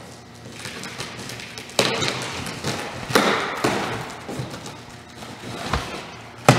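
Cardboard shipping box being slit open with a box cutter and handled: scraping and rasping of cardboard and tape, broken by several sharp thuds, the loudest near the end.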